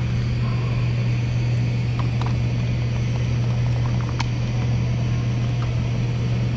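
Steady low hum at one pitch over a background hiss, with a few faint light clicks about two seconds and four seconds in.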